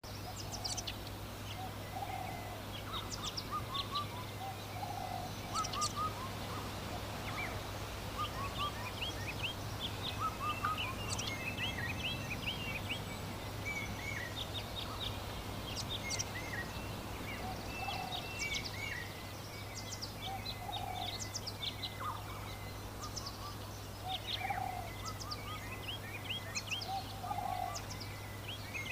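Countryside birdsong: many small birds chirping and twittering continuously, with a lower short call repeating every few seconds, over a steady low hum.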